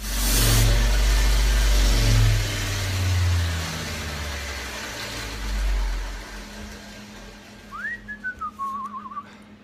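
Gas-shielded arc welding on the steel bike frame: a loud, steady crackling hiss over a deep electrical hum that starts abruptly and dies away about six seconds in. Near the end a person whistles briefly, a short rising-then-wavering tune.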